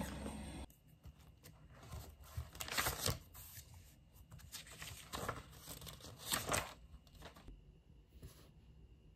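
Paper rustling as the pages of a spiral-bound notebook are handled and turned, with two louder page-turn swishes about three seconds in and again after six seconds.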